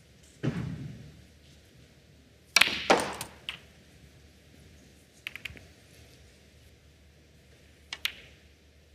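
Snooker balls clicking: a sharp pair of clicks about two and a half seconds in as cue ball and object ball are struck, then a few fainter clicks later. A brief low rumble comes just after the start.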